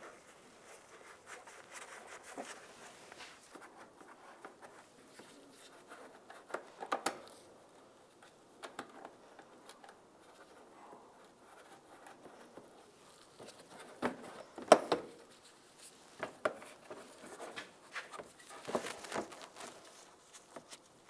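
Scattered rustles, scrapes and clicks as an inner fender well liner is pushed and fitted into a car's wheel well by gloved hands, with a cluster of louder knocks about a third of the way in and the loudest clack about two-thirds through.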